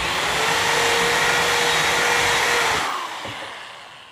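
Cordless drill running at speed with its bit in a ceiling hole, enlarging it, a steady motor whine over the drilling noise. About three seconds in the trigger is released and the drill winds down.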